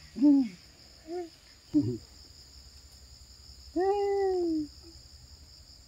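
Crickets chirring steadily in the background, under a few short pitched calls that rise and fall; the longest and loudest comes about four seconds in.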